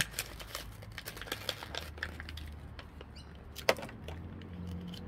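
Plastic blister packaging of a diecast model car being cracked open and handled: a run of small clicks and crackles, with one sharp snap about three and a half seconds in.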